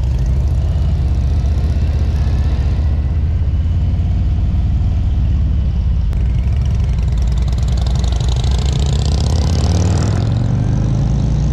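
Motorcycle engine running steadily, its pitch rising near the end as it speeds up.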